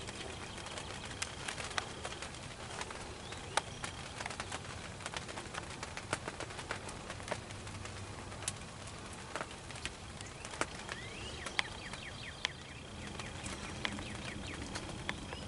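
Quiet springtime field ambience: scattered sharp ticks and clicks, with songbird chirps. A thin, steady high tone sounds at the start, stops after about two seconds, and returns about two-thirds of the way in.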